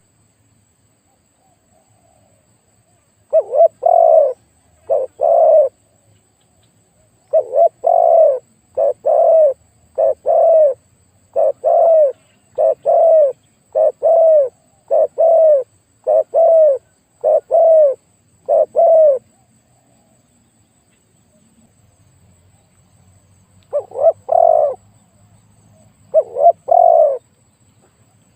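Spotted dove cooing: a long series of deep, repeated coo notes, about one a second. It breaks off for several seconds and then starts again near the end.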